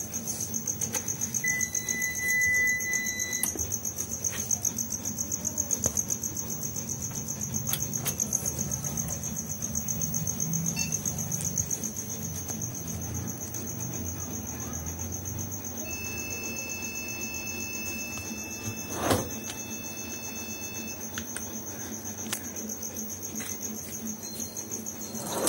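Steady high-pitched trilling of crickets, with a low hum underneath and a single sharp click about nineteen seconds in.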